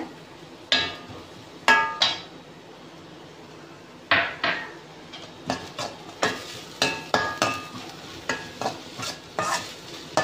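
A metal slotted spoon clanks and scrapes against a stainless steel kadai as chopped onions, garlic and curry leaves are stirred in hot oil. Each knock rings briefly, and the knocks come faster from about halfway through. A low sizzle of frying runs underneath.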